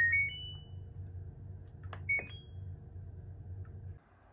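Front-loading washing machine's control panel beeping as it is started: a short rising tune of electronic beeps, then about two seconds in a button click followed by two more beeps, over a low steady hum.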